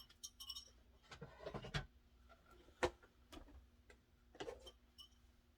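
Scattered light clicks and knocks of objects being handled, the sharpest about three seconds in, over a faint steady hum.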